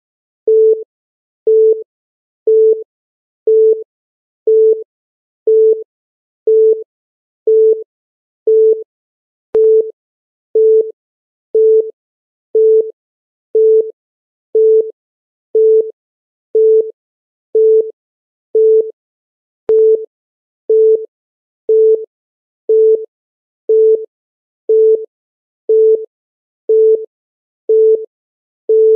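Countdown timer beep: a short, steady, mid-pitched electronic tone sounding once every second, marking each second as the timer counts down. A few faint clicks come about ten seconds apart.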